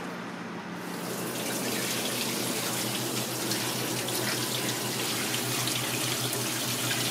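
Kitchen tap running in a spray onto a stainless steel sink while an octopus tentacle is rinsed and rubbed by hand under the stream, the water starting about a second in and running steadily.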